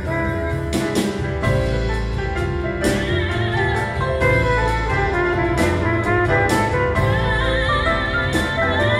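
A woman sings a passionate, wavering held line over a live acoustic band of piano, trumpet, double bass and percussion, with cymbal strokes coming through at intervals.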